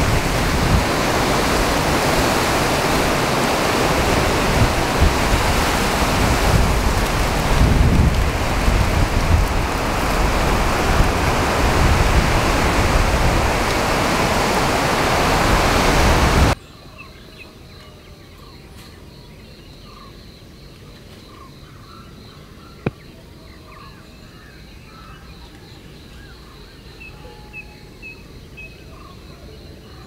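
Heavy rain and wind, with gusts buffeting the microphone and a deep rumble. It cuts off abruptly about halfway through to a faint night chorus of small chirping calls, with one sharp click a few seconds later.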